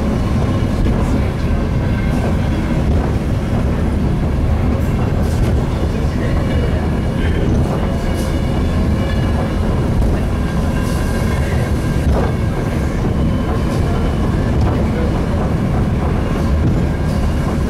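Eizan Cable funicular car running steadily on its track: a continuous low rumble, with a few faint clicks over it.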